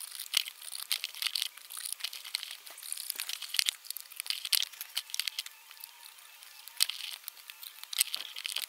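Cardboard sheet being handled and pressed against the bare parcel shelf of a car: an irregular run of crinkling rustles, small clicks and scrapes.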